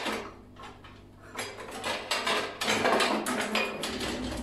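Rummaging through a kitchen drawer: metal utensils clattering and rattling as they are pushed about, growing busier, with a loud thump of the drawer shutting at the end.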